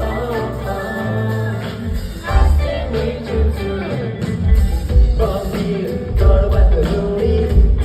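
A pop song performed live over a backing track, with singing and a heavy bass beat.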